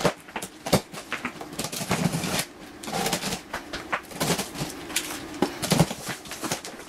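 Large cardboard shipping box being opened by hand: plastic strapping and packing tape cut, then the flaps pulled open. A run of irregular scrapes, clicks and rustles of tape and cardboard.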